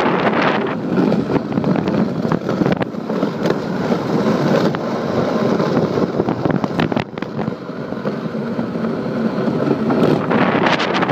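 Wind buffeting the microphone over the low, steady rushing noise of an iceboat sailing across clear ice on its runners, with a few sharp clicks.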